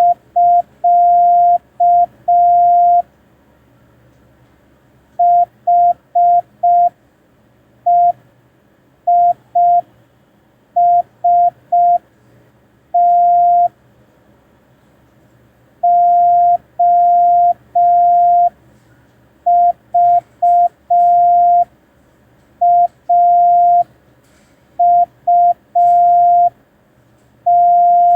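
Morse code practice tone of one steady pitch keyed in dots and dashes, sent slowly with long gaps between characters. It opens with the CT start-of-message prosign.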